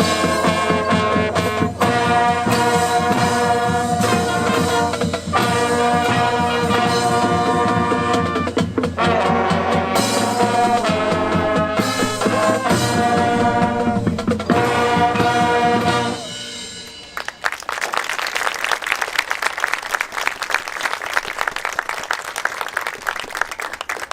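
Marching band playing brass and drums, stopping abruptly about two-thirds of the way through. The crowd in the stands then applauds.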